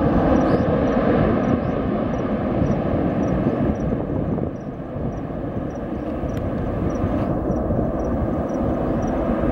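An airliner's engines run as a steady, dense rumble that eases slightly about halfway through. A faint high chirp repeats about every half second over it.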